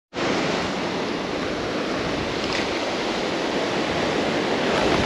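Surf breaking and washing against the rocks of a jetty: a steady, even rush of waves.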